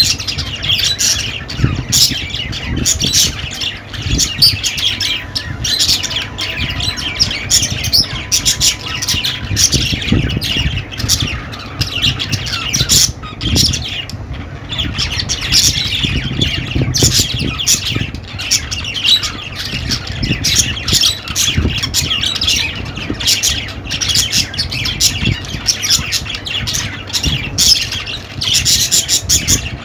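Budgerigars chattering and squawking in a dense, continuous stream of short, rapid chirps, with a low rumble underneath.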